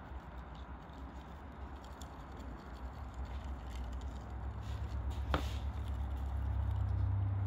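A low, steady rumble that swells toward the end, under faint scratchy rustles of dry rub being sprinkled and patted onto a rack of raw pork ribs by gloved hands, with a single click about five seconds in.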